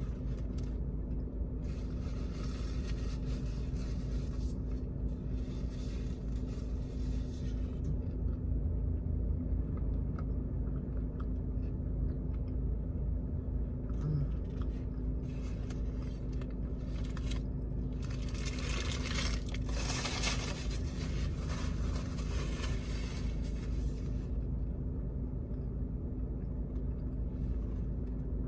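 Steady low rumble of a car idling, heard from inside the cabin, with two longer stretches of rustling noise: one about two seconds in and another around eighteen to twenty-four seconds in.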